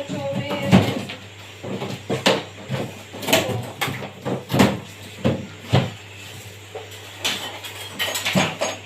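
Irregular clicks, knocks and clatters of hard parts and tools being handled during an RO water purifier repair, one or two a second with a short lull partway through, over a faint steady low hum.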